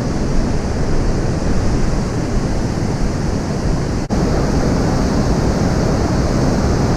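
Steady, loud rush of a waterfall in spate after heavy rain, with a brief dropout about four seconds in.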